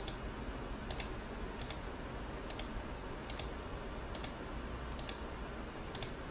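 Light, quiet clicks at a computer, one click or a quick pair of clicks every second or so, over faint hiss.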